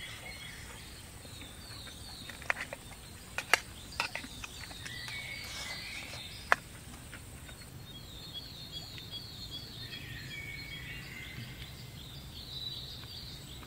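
A metal spoon clinks sharply against a metal mess tin about four times while rice is eaten from it. Birds chirp in repeated short falling calls, and a steady high insect drone stops about halfway through.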